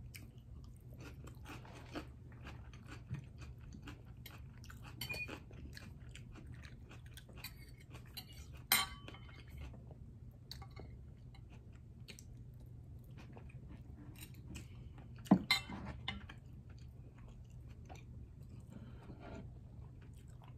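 Close-up eating sounds of lobster and salmon: chewing and small mouth sounds, with forks clicking and scraping on a plate. Two louder knocks of tableware stand out, about midway and again about three-quarters of the way through.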